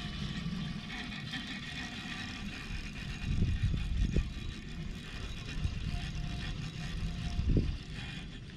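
Wind rumbling on the microphone, with two stronger gusts about three and a half and seven and a half seconds in.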